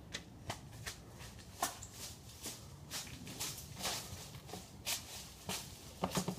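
Footsteps on a driveway strewn with dry leaves: irregular scuffs and crunchy clicks.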